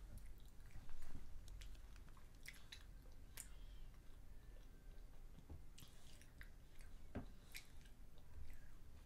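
A child chewing food with her mouth closed: faint, scattered wet clicks and smacks.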